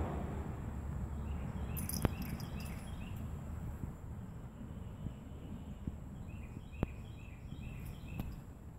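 Outdoor background rumble with small birds chirping in two short runs, one starting about a second in and another near the end, and two sharp clicks.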